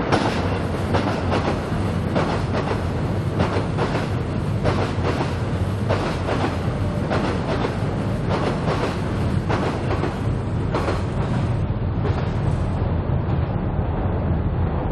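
Seoul Subway Line 7 train running on the bridge deck overhead, its wheels clacking over the rail joints at irregular intervals above a steady low rumble. The clacking dies away about twelve seconds in, leaving the rumble.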